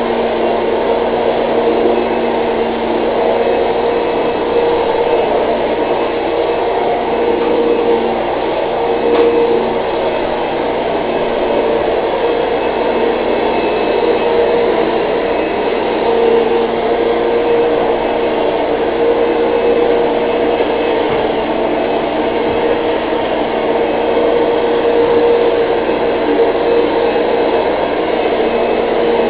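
Vacuum cleaner running steadily, its motor giving a constant hum over the noise of the suction.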